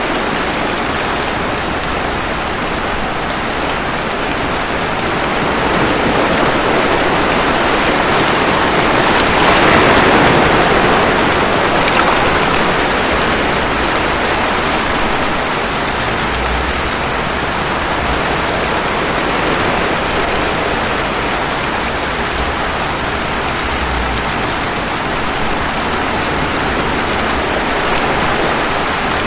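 Steady rain mixed with ocean waves, an even wash of water noise. One slow swell builds and peaks about ten seconds in, then eases back.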